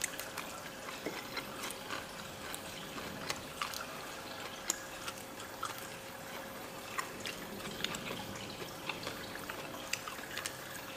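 Steady trickling of aquarium water with a faint steady hum, overlaid by irregular small clicks and smacks of eating by hand from plates.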